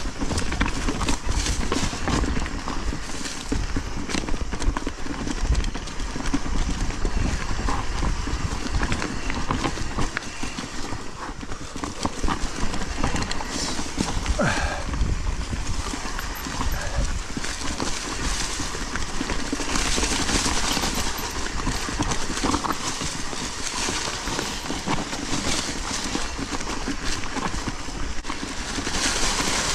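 Mountain bike being ridden along a dirt trail: steady wind rumble on the camera microphone, with the bike rattling and clattering over bumps.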